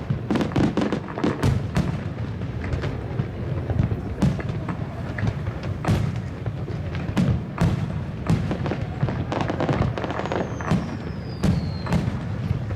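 Aerial fireworks display: shells bursting in a steady run of booms and sharp cracks, several coming in quick clusters. Near the end a high whistle glides down in pitch over a second or two.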